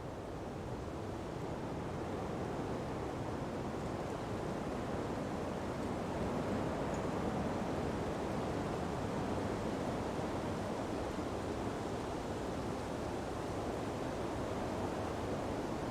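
Breeze blowing through palm fronds in a steady, even whoosh. It swells a little over the first few seconds, then holds.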